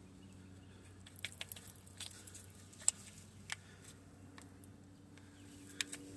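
Faint, scattered light clicks and taps of small parts being handled by hand, over a low steady hum; a cluster comes in the first half and one more click near the end.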